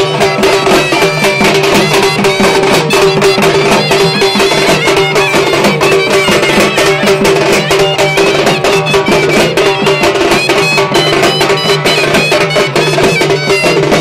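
Loud traditional Indian folk music: a reed wind instrument plays a stepping melody over a steady held drone, with fast, dense percussion throughout.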